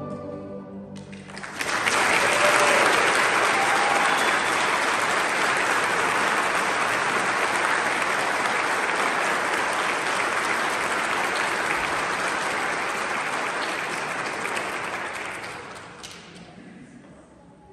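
The last held note of the music fades out. About a second and a half in, a church congregation breaks into applause, which holds steady and then dies away near the end.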